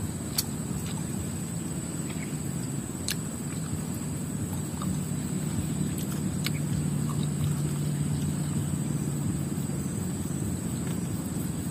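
Outdoor ambience: a constant high insect drone over a steady low rumble, with a low engine-like hum growing louder through the middle. A few faint clicks.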